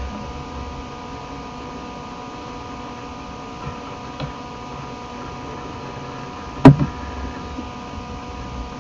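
Steady electrical hum and hiss from a desk microphone, with a single sharp mouse click about two-thirds of the way in.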